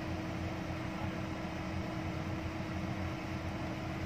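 Steady hum of an idling car heard from inside the cabin, with one constant low tone running through it.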